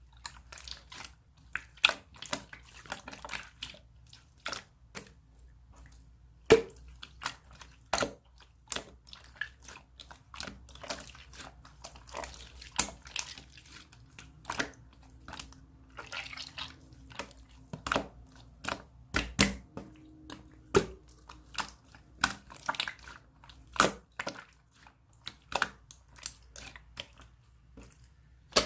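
Pink clear jelly slime with gold pearl shimmer being pressed, stretched and poked by hand, making wet, sticky clicks and pops, several a second at an irregular pace.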